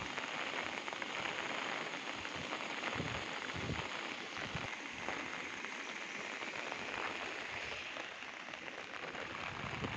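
Muddy floodwater rushing across a road and spilling over its edge: a steady, even rushing and splashing.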